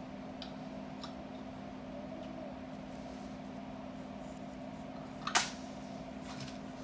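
Hands threading string through a fabric-wrapped dream catcher hoop: faint handling ticks, then one sharp click about five seconds in, over a steady low hum.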